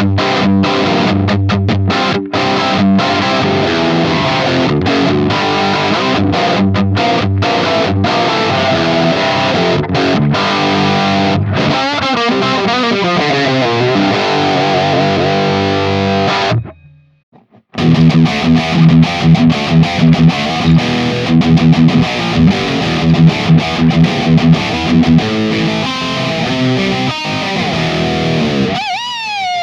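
Distorted electric guitar played through a digital amp modeler with cabinet impulse responses. A sustained riff with wavering, bent notes stops about 16 seconds in. After a short gap a choppier riff with short accented notes follows, ending on a bent note.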